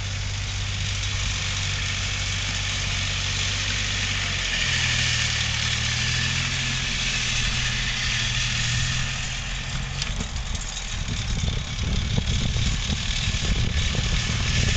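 Old farm tractor engine running steadily while pulling a tillage implement, its pitch stepping up slightly about four seconds in. From about ten seconds in the engine sound turns uneven and rumbling, and it grows louder near the end.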